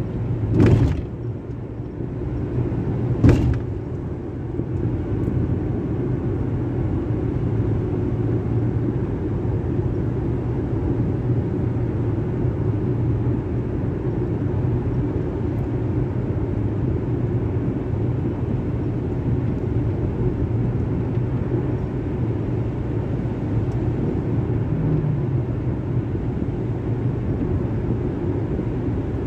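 Steady road and engine noise inside a moving car's cabin. Two brief thumps come about a second in and again about three seconds in.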